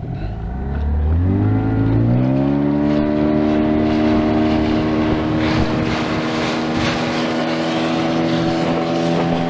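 Outboard motor on an inflatable boat speeding up over the first two seconds or so, then running steadily at cruising speed as the boat moves along.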